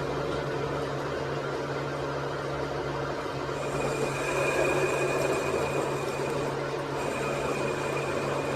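An electric machine motor running steadily with a low hum; a high, steady whine joins a few seconds in and cuts out briefly near the end.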